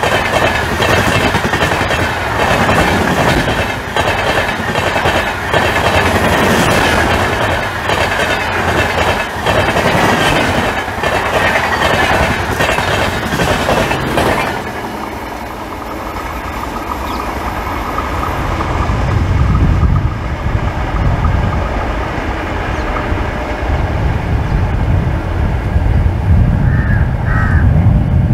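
LHB express train passing close at speed, its wheels clattering rapidly over rail joints under the steady rush of the coaches. About halfway through, the last car goes by and the noise drops away suddenly, leaving a low uneven rumble as the train recedes.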